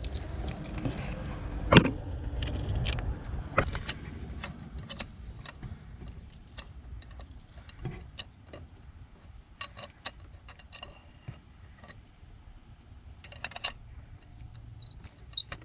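Scattered metallic clicks and clinks of a ratchet and 9/16 spark plug socket working a spark plug loose in a Ford 5.4 L V8's cylinder head, with a louder knock about two seconds in and small runs of clicks later.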